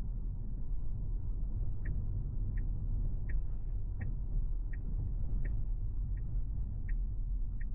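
Tesla's turn-signal indicator ticking at an even pace, about three ticks every two seconds, starting about two seconds in. Under it runs the steady low rumble of road noise inside the car's cabin.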